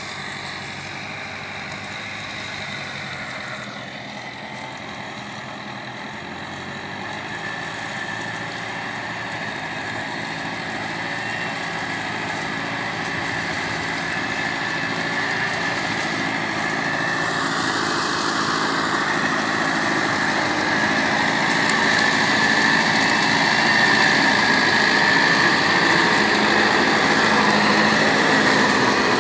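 Tractor engine working under load, driving a heavy-duty super seeder whose rotor tills the soil as it goes. The steady running grows louder as the tractor comes closer.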